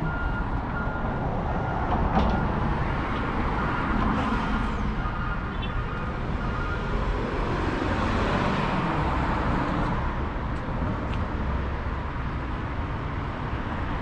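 Steady street traffic noise, with a vehicle swelling past about eight seconds in. A faint repeated high beep sounds through the first half.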